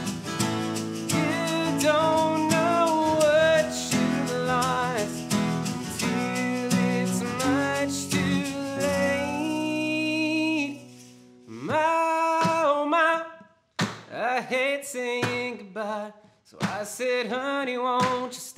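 Acoustic folk-rock band playing, with several acoustic guitars strumming together. About eleven seconds in, the playing thins out and breaks into short, separated strums with brief gaps between them.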